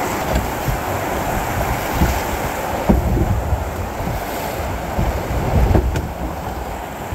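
Rushing water of a river rapid, with wind buffeting the microphone in an uneven low rumble.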